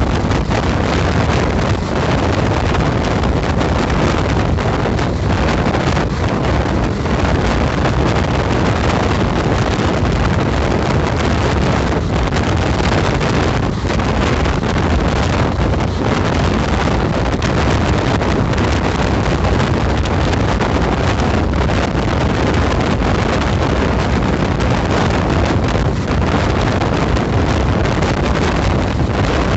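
Steady wind buffeting the microphone over the running rumble of an Indian Railways passenger train moving at speed, heard from an open coach door or window.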